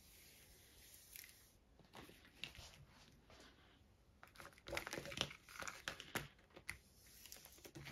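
Faint crinkling and rustling of the clear plastic film on a diamond painting canvas as a hand presses a tape measure flat across it, mostly in the second half.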